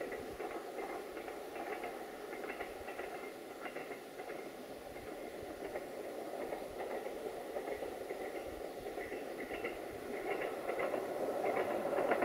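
Distant diesel train running along the line, a steady rumble that grows louder over the last two seconds as it approaches.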